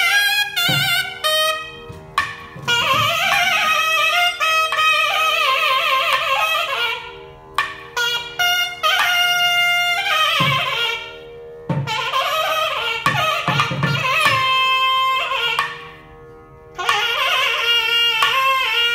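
Nagaswaram playing a Carnatic melody full of sliding, wavering ornaments over a steady drone, with short breaks in the phrase about seven and sixteen seconds in. Thavil drum strokes come in around the middle.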